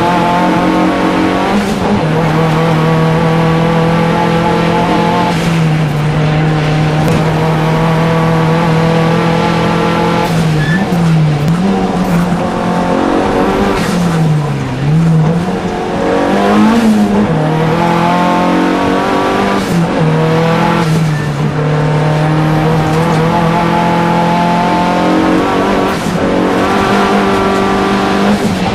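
Opel Calibra Turbo hillclimb car's turbocharged engine heard from inside the cockpit, running hard at high, fairly steady revs at racing speed. The pitch dips briefly and climbs back a few times, about ten and fourteen seconds in and again around twenty seconds, as the driver lifts or shifts through the bends.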